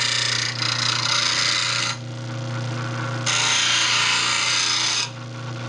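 Slow-speed bench grinder running with a steady motor hum while a bowl gouge is pressed to the wheel in two passes, each a harsh rasping grind lasting a second or two: relief grinds being cut on the back of the gouge's bevel.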